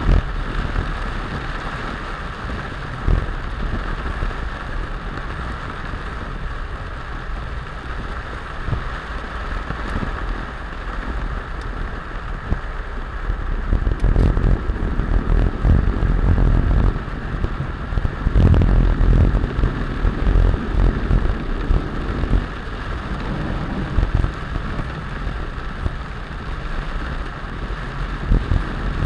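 Heavy rain falling steadily, with low rumbles swelling up now and then, loudest about halfway through.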